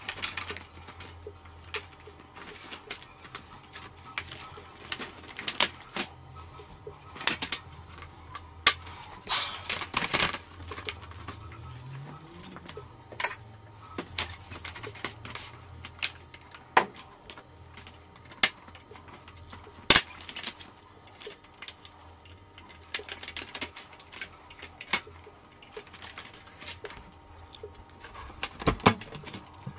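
Irregular clicks and taps of metal and plastic parts of a disassembled LCD monitor panel being handled by gloved hands, a few of them sharper knocks, over a low steady hum.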